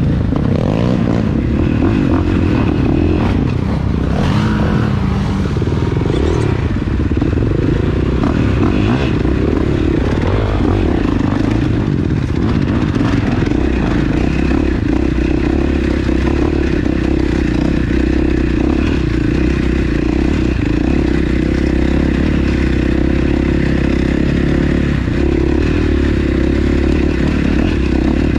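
Yamaha Banshee 350 ATV's two-stroke twin engine running at a steady throttle, with knocks and rattles from the quad riding over a rocky trail.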